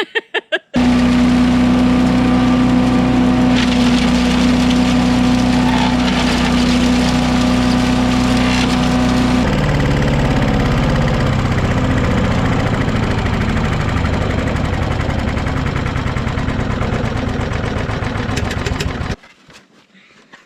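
A motor engine running steadily, starting abruptly just under a second in. About halfway through its sound changes abruptly to a rougher, pulsing run, and it cuts off abruptly near the end.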